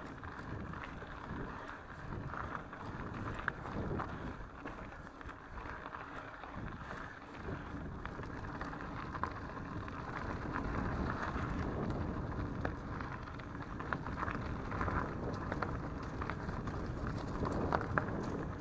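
Mountain bike rolling fast over a dirt forest trail: a steady rush of tyre noise and wind on the microphone, with scattered clicks and rattles from the bike.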